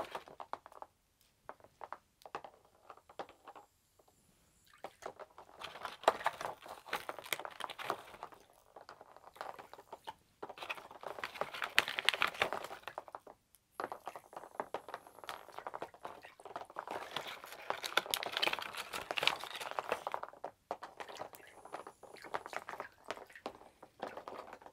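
Irregular bursts of crackling, clicking and light water splashing as small HEXBUG Aquabot robot fish toys are handled and put into a shallow plastic tub of water, with short quiet gaps between.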